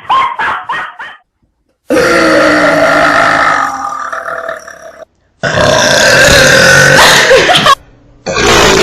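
Long, loud burps from girls, one after another: one of about three seconds that fades toward its end, then after a sudden silent break another of about two and a half seconds, with a third starting near the end. A few short bursts of sound come in the first second.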